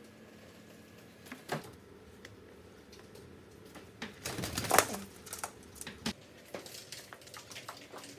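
Live chicken calling, with its loudest squawk about halfway through as it is handled and lifted, over scattered keyboard clicking.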